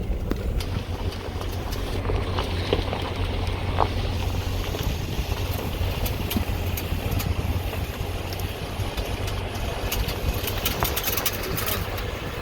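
Jeep's engine and tyre noise while driving on a dirt road, a steady low hum with scattered small clicks and rattles.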